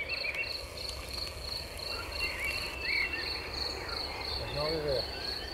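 A cricket chirping in a steady, rapid series of high pulses, about four or five a second.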